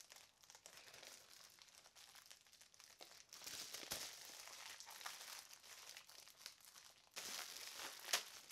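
Plastic packaging crinkling as it is pulled open by hand, with louder rustling from about three seconds in and again near the end, and a few sharp crackles.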